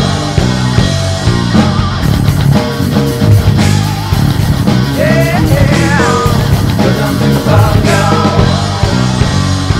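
Metal rock song: distorted electric guitar over drums, with a few sliding high notes around the middle.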